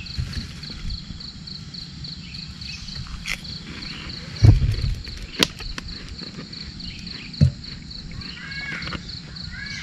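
Insects chirping steadily in an even pulsing rhythm, about three pulses a second, with a few short knocks and clicks near the middle.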